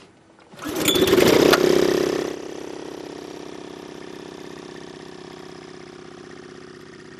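Small engine of a floating hookah dive compressor starting up: it catches about half a second in and runs loud for about a second and a half, then settles into a steady, even run.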